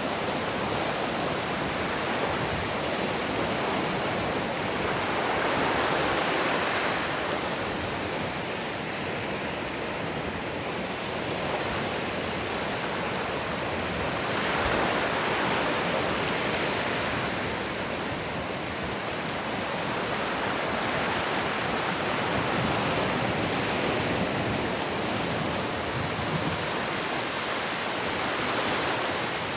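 Ocean surf washing onto a beach: a steady rush of small waves that swells and eases every few seconds.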